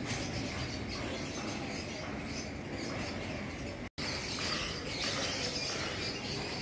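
Outdoor ambience: a steady background hiss with faint bird chirps, broken by a momentary dropout about four seconds in.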